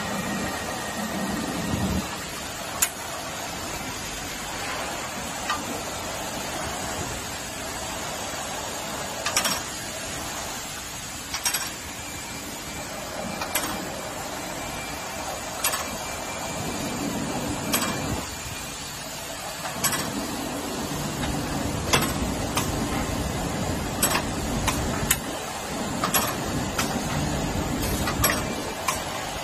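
Reliable CGFD12-12-6 rinsing-filling-capping machine for carbonated drinks running: a steady mechanical whirr with sharp clicks and clinks about every two seconds.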